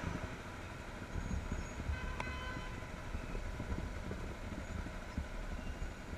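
Motorcycle idling at a stop amid city traffic rumble, heard through a helmet camera's microphone. A short high beep comes about two seconds in.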